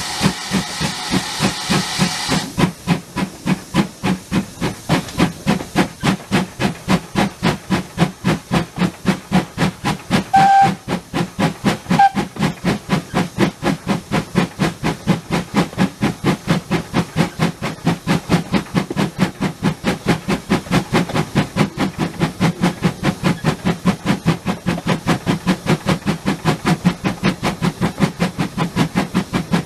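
GWR tank steam locomotive working a train, heard from close by. A steady hiss of steam stops about two seconds in, and then come regular exhaust beats at about three a second, with two short whistle toots near the middle.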